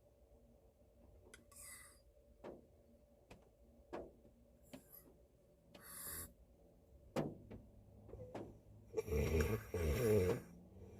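A man asleep inside a car, snoring: soft hissing breaths with scattered faint ticks, then one loud snore about nine seconds in, lasting over a second.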